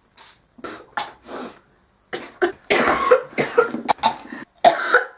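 A few short hissing puffs, then a run of harsh coughs from a young woman choking on Febreze air freshener that she has just sprayed.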